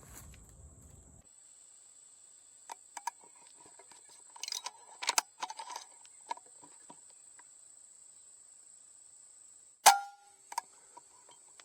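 A pellet gun (air rifle) firing once about ten seconds in: a single sharp crack with a brief ring after it. Scattered faint clicks and rustles come before it, over a steady high-pitched hum.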